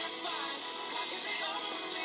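Music playing, a song with pitched lines that bend and glide, at a steady level throughout.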